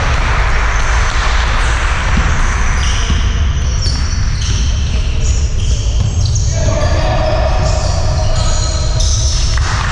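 Live sound of a basketball game in a large echoing sports hall: the ball bouncing on the court and players' shoes on the floor, with short high squeaks scattered through, over a constant low rumble.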